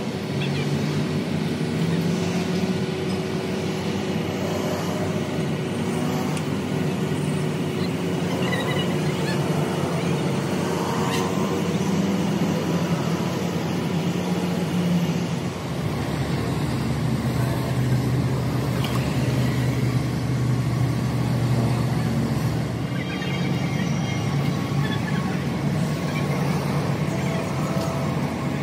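An engine running steadily, settling to a lower speed a little past halfway through.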